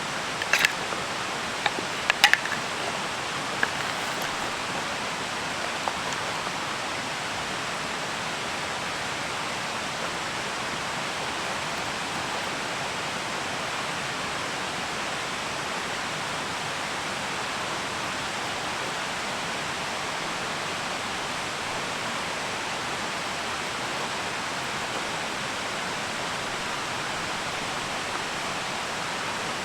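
Steady rushing water of a stream, an even hiss, with a few sharp clicks in the first few seconds.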